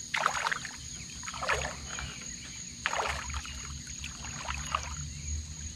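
Water splashing in a few short bursts at the side of a small fishing boat as a freshly hooked largemouth bass is handled at the surface, over a steady high insect buzz.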